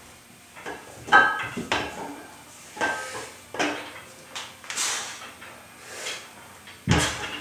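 Metal clanking and rattling from a homemade plumbing-pipe yoke squat bar loaded with iron weight plates: the loose pipe fittings and plates knock against each other as the bar is lifted and set back down in bottom-start squats. A series of sharp clanks, some briefly ringing, the loudest about a second in and another heavy one near the end.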